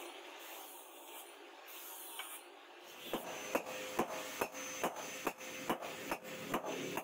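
A steady hiss from the charcoal forge, then about three seconds in a hammer starts striking red-hot steel on an anvil, about two and a half blows a second, each with a ringing note.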